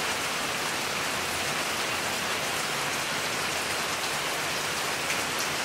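Steady rain falling, an even hiss with no letup.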